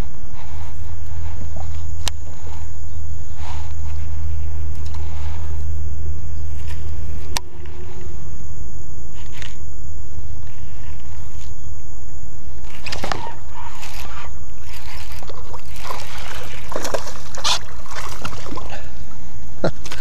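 Water sloshing around a small paddle boat, with a couple of sharp knocks early on. Splashing builds in the last several seconds as a hooked largemouth bass thrashes at the surface.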